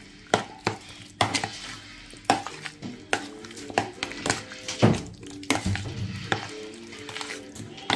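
A metal spoon stirring chunks of raw chicken through a thick yogurt marinade in a plastic bowl, with irregular clicks and knocks, about one or two a second, as the spoon strikes the bowl.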